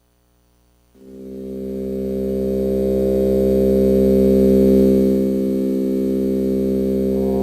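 FM MINT mk2, a business-card-sized FM synthesizer, playing a sustained drone chord. It fades in about a second in and swells over the next couple of seconds. Near the end higher overtones come in and the tone brightens.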